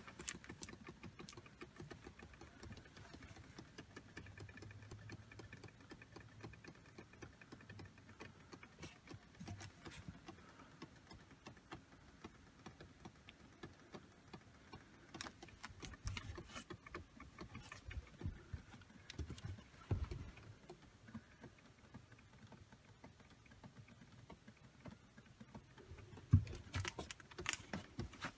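Hot water pipes creaking and ticking irregularly as the hot water runs, with a few louder cracks in the second half.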